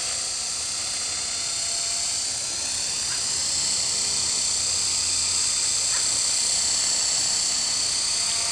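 Electric RC helicopter, an Esky Honey Bee King 2, hovering low: the motor and spinning rotor blades give a steady high-pitched whine.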